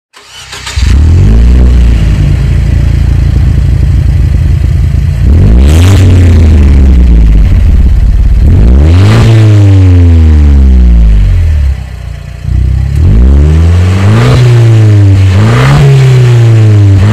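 Abarth 124 Spider's 1.4-litre turbocharged four-cylinder engine through a Magnaflow cat-back exhaust. It runs steadily at first, then is revved several times, the pitch climbing and falling back each time. The longest rev comes about halfway through, with quicker blips near the end.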